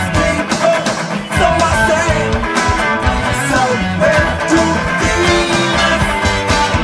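Funk rock song with drums and bass, a Telecaster-style electric guitar playing the guitar part over a steady beat.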